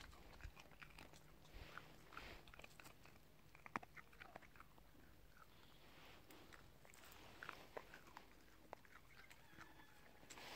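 A dog chewing carob pods, a run of faint, sharp crunches and bites.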